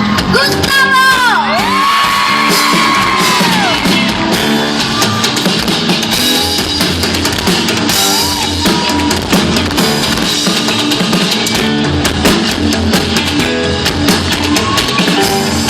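Live pop-rock band playing loud amplified music, with electric guitar and drum kit over a steady beat. High yells glide up and down in the first few seconds.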